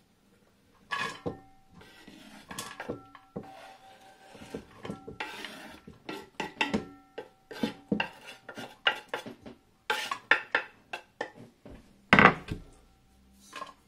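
Knife and wooden cutting board scraping chopped onion into a metal multicooker pot, with many short clicks and knocks against the pot rim, a few of them followed by a brief ring from the pot. The loudest knock comes near the end, as onion is tapped off the knife blade over the pot.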